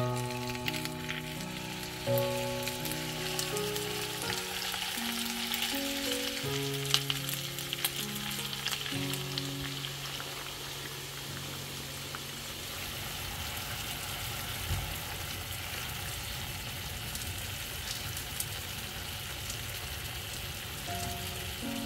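Cornmeal-breaded chicken thighs frying in vegetable oil in a nonstick pan, a steady sizzle with a few light clicks. About halfway through, light beer is poured into the pan. Soft background music plays over the first half, then stops.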